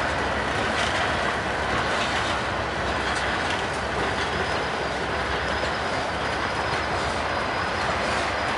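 Freight train cars rolling past at a steady pace: continuous wheel and rail rumble with a faint high-pitched wheel squeal over it.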